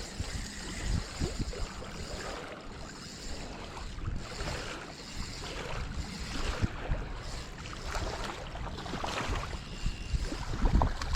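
Wind buffeting the microphone in uneven gusts, with a low rumble and scattered light clicks.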